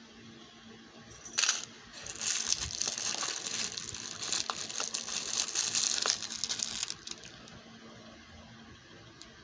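Small gold-tone oxidised metal charms clinking against each other as a hand rummages through a compartment of loose charms in a plastic organiser box: one sharp clink a little over a second in, then about five seconds of dense jingling that stops near the end.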